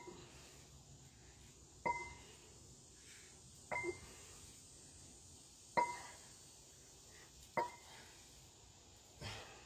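A pair of hex dumbbells knocking together once at each rep of a set of shrugs: about five short, metallic clinks, each with a brief ring, evenly spaced about two seconds apart.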